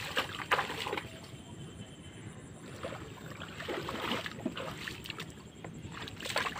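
Floodwater splashing and sloshing around a person's legs as they wade knee-deep, in irregular splashes that are loudest in the first second, around the middle and near the end.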